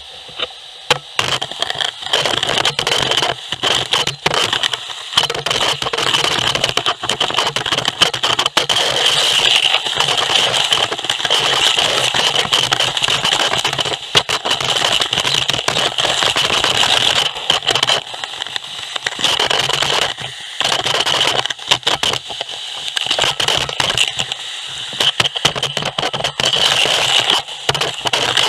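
Gutter vacuum sucking debris through a carbon-fibre pole: a rush of air with dense rattling and crackling as moss and grit are drawn up the pole, starting about a second in with a few brief dips.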